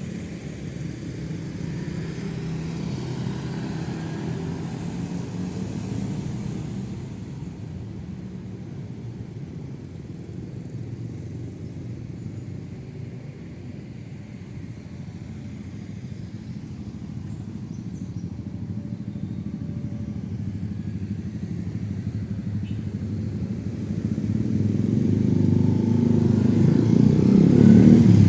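Roadside traffic of motorcycles and cars passing, a steady rumble of engines and tyres. It eases off in the middle and builds again toward the end as a louder vehicle approaches.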